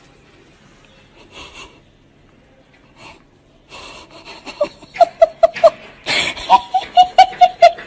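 A voice making a quick run of short, squeaky wheezing sounds, about four a second, that starts about four seconds in and grows loud toward the end.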